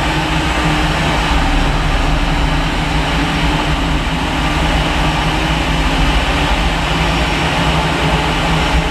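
Steady jet airliner noise from a Boeing 737-800 on the apron: a continuous rumble with a low, even hum that holds level throughout.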